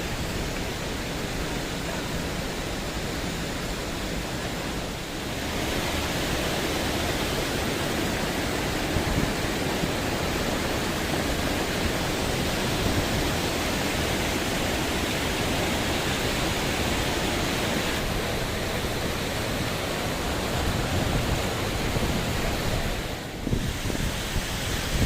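Waterfall rushing, a steady noise of falling water that gets a little louder about five seconds in and dips briefly near the end.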